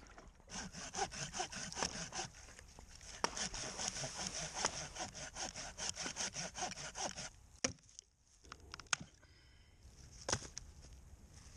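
Hand saw cutting through wood with quick, even back-and-forth strokes that stop about seven seconds in; a few separate sharp knocks follow.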